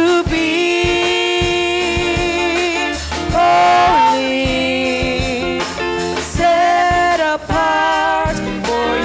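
Several women's voices singing a slow worship song into microphones, holding long notes, backed by a drum kit and instrumental accompaniment.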